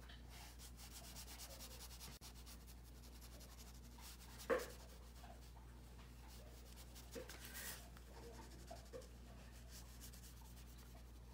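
Brush marker tip rubbing and scratching over coloring-book paper, faint. About halfway through, a single short sharp sound stands out, with a few fainter short sounds after it.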